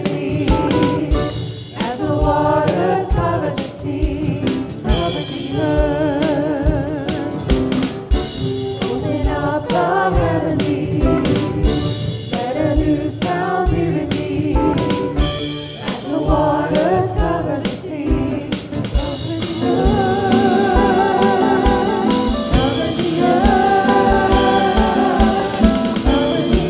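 Worship song: singing voices with vibrato over a band accompaniment and a steady drum beat, the sound growing fuller and more sustained about two-thirds of the way through.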